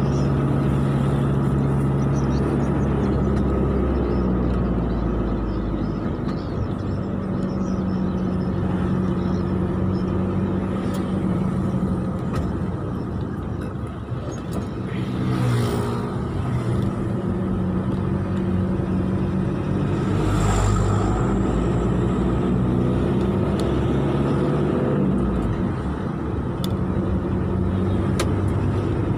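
Road vehicle driving in traffic behind a bus: a steady engine hum whose pitch shifts slightly with speed, over continuous road and tyre noise, with a couple of brief swells of noise about halfway and two-thirds of the way through.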